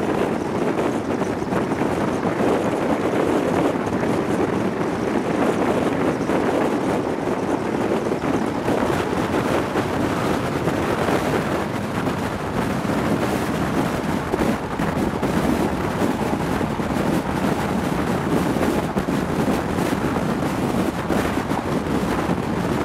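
Wind rushing over a microphone held out of the window of an HST (InterCity 125) train running at speed, mixed with the steady rumble of the train on the rails.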